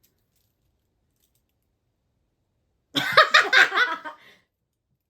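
Near silence, then about three seconds in a short, loud burst of a woman laughing, rapid pulses lasting about a second and a half.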